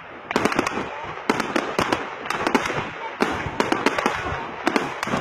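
Fireworks display: clusters of rapid bangs and crackling bursts, several volleys a second or so apart.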